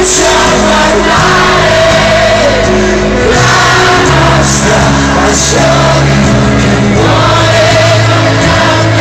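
Live pop-rock band playing in a stadium, recorded from amid the crowd: held bass and keyboard notes changing about once a second, with singing over them.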